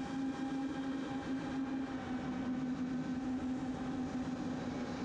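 FPV quadcopter's brushless motors and propellers running at a steady pitch, a constant hum with a noisy rush beneath it, picked up by the onboard GoPro Hero4.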